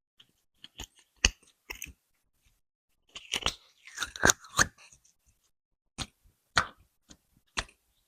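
Slime jars being handled on a wooden surface: a series of short, sharp clicks and taps with a denser crackly cluster about three to five seconds in.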